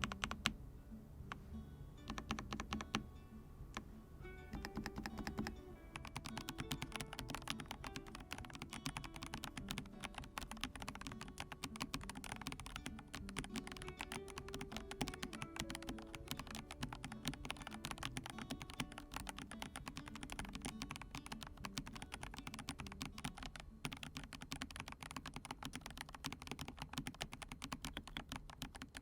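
Typing on a full-size mechanical keyboard with Gazzew Boba U4T tactile, non-clicky switches and PBT Cherry-profile keycaps. Scattered keystrokes at first, then from about six seconds in a fast, continuous run of typing, with soft background music underneath.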